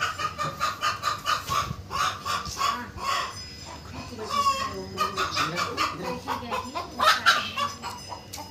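Chickens clucking in quick runs of short, repeated calls, with a louder burst of calls near the end.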